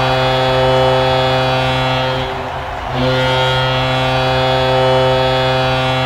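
Toronto Blue Jays home run horn, a deep ship-style stadium horn, sounding two long steady blasts: the first stops a little over two seconds in, and the second starts about a second later and holds to the end.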